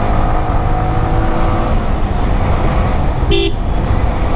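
Motorcycle running steadily while being ridden on a road, a continuous low rumble. A vehicle horn gives one short beep a little over three seconds in.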